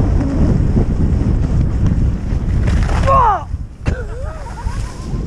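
Wind buffeting a helmet camera's microphone as a skier runs downhill, a loud, steady low rumble that drops away a little before four seconds in, followed by a single sharp click.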